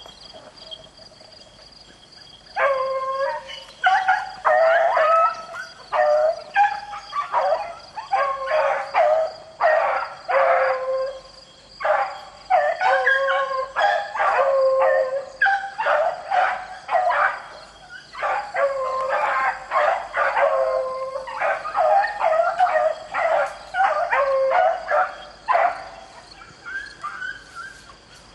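Beagles baying on a rabbit's trail: several hounds giving long, overlapping bawls, starting a couple of seconds in and going almost without a break until near the end.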